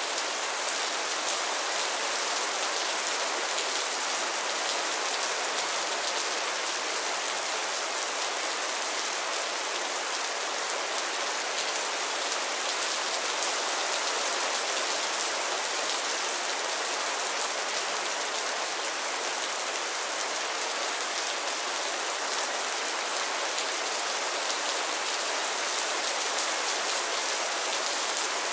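Mild rain falling steadily on a roof and the ground: an even hiss of many small drops, without a break or a change in strength.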